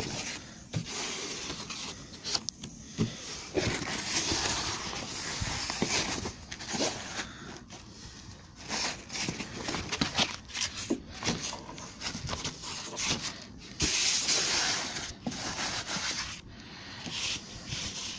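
Roofing felt rustling and scraping as it is handled and worked over battens, with many scattered sharp knocks and taps throughout.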